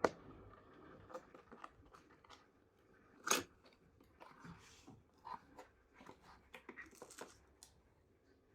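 Cardboard box and plastic packaging being handled and opened: scattered clicks, crinkles and rustles, with a sharp click at the start and one louder crackle about three seconds in.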